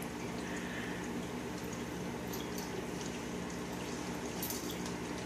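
Dog chewing at a Busy Buddy treat toy: faint, scattered soft clicks and rustles, with a steady low hum underneath.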